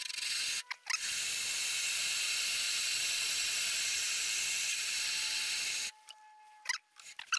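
Lathe tool cutting the steel tread of a miniature locomotive's tender wheel, re-turning it in fine cuts to remove a flat spot: a steady hiss of the cut that breaks off briefly just under a second in and stops about six seconds in.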